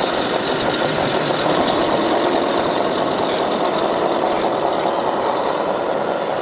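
Water running hard onto a plastic toy as it is washed: a steady rushing.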